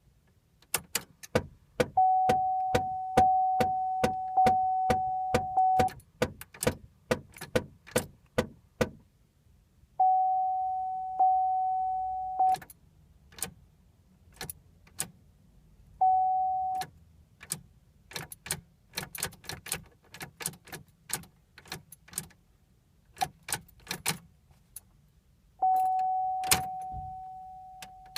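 Repeated sharp clicks from the 2007 Pontiac G5's ignition as the key is tried over and over, the car clicking but not cranking. A steady electronic warning chime sounds in several stretches and fades each time. The engine never turns over.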